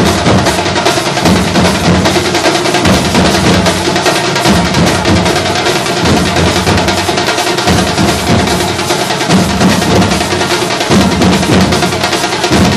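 A drum troupe playing a fast, loud rhythm on large shoulder-slung bass drums and metal-shelled side drums beaten with sticks, dense strokes without a break.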